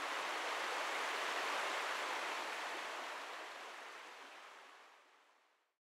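Steady rushing of water with no other sound, fading out over a couple of seconds to nothing.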